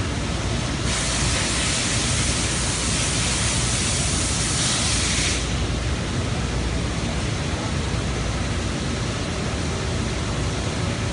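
Haas Multigrind CA five-axis CNC grinder running with flood coolant pouring over the grinding head: a steady noise of machine and falling coolant. A brighter, louder hiss joins from about a second in and stops about five seconds in.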